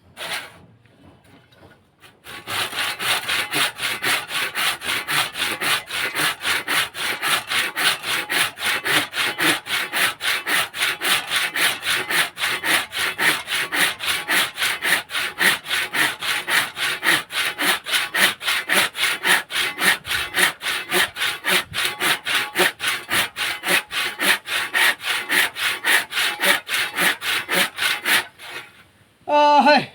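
Hand saw cutting through wood with steady back-and-forth strokes, about three a second, starting a couple of seconds in and stopping shortly before the end.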